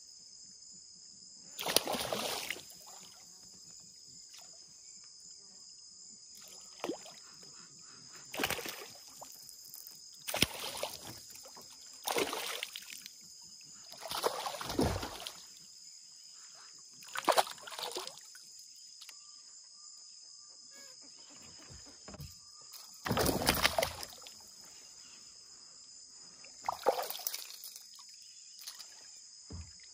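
Kayak paddle strokes dipping and splashing in the water, one every few seconds, over a steady high buzz of insects.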